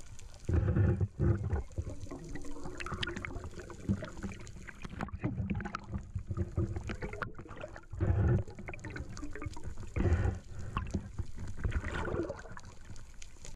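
Water sloshing and rushing over an underwater camera housing as a speared barracuda is handled against it, with heavy rumbling thumps about half a second in and twice more later on, and scattered small clicks.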